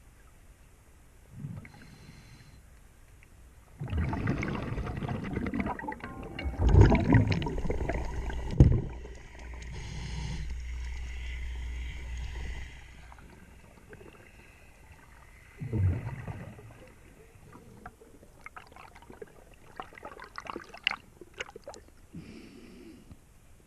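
Underwater recording of a scuba diver's exhaled breath bubbling and rushing past the microphone for several seconds, followed by another short bubble burst and then scattered sharp clicks and taps.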